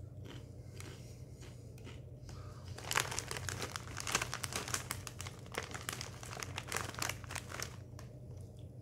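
Lay's potato chip bag crinkling as it is handled: a few scattered rustles at first, then dense, continuous crinkling from about three seconds in until near the end.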